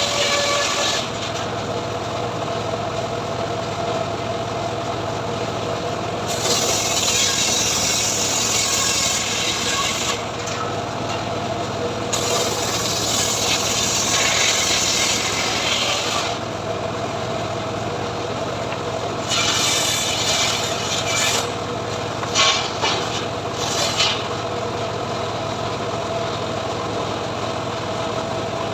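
A homemade engine-driven saw rig runs steadily while ripping mahogany, with three long stretches of harsh cutting noise as the blade works through the wood and a few short sharp bursts near the end.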